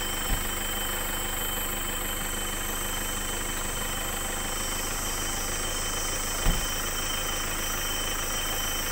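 A 4x4's engine running steadily, heard from inside the cabin. Two low thumps, one just after the start and a louder one about six and a half seconds in.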